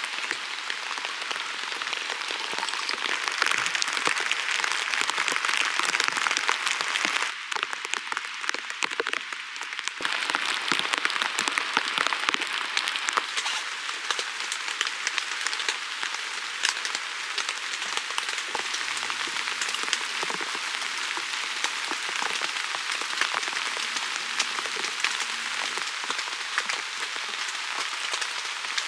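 Steady patter of rain: a dense hiss of fine drop ticks that dips briefly about seven seconds in and then resumes.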